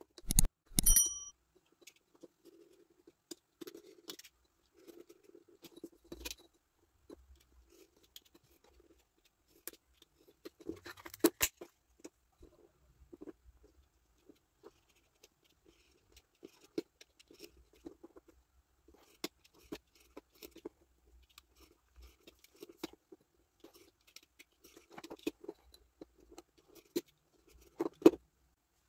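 Pen and craft-knife blade scratching in short repeated strokes along a steel ruler on a thin sheet of wood, scoring plank lines, with sharp clicks and knocks as the ruler and knife are handled and set down. A brief ringing chime sounds near the start.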